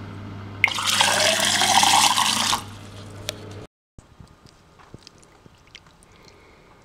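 Water from a sink tap running into a drinking glass for about two seconds, its pitch rising as the glass fills, over a steady low hum. After a break it is much quieter, with only faint scattered ticks.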